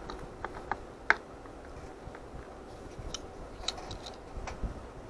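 Light clicks and taps of hard plastic model-engine parts being handled: a clear plastic cylinder head set against a plastic block. Scattered single clicks, the sharpest about a second in, with a few more later.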